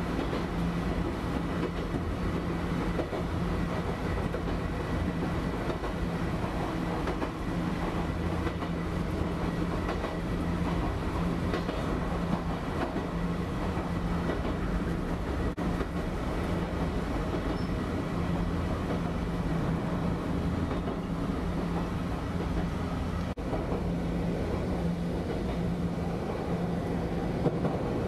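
Nankai 2230-series electric train, a 1970-built car, running along the line, heard from inside the front of the car: a steady running rumble with a low hum that swells and fades, and occasional clicks from the wheels.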